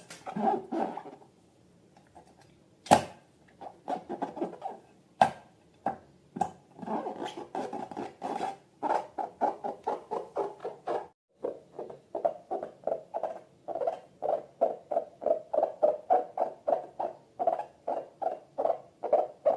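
Slime being worked by hand, giving a run of short, wet squelches that settle into a steady beat of about two to three a second in the second half. A couple of sharp clicks come near the start.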